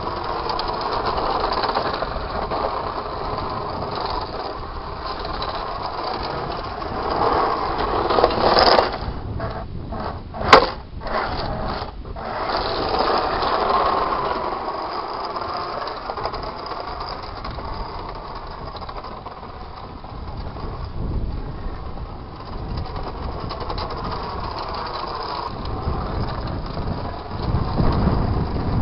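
Combat robot's electric drive motors whining as it drives over asphalt, the pitch rising and falling as it speeds up and slows down. A few sharp knocks come in the middle, one of them much louder than the rest.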